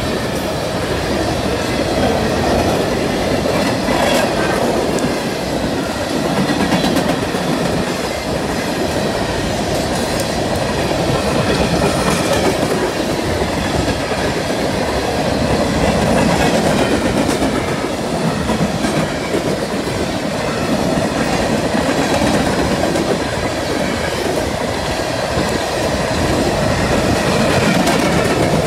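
Empty coal cars of a long freight train rolling past, a steady rumble and clickety-clack of steel wheels on the rails, swelling and easing slightly as the cars go by.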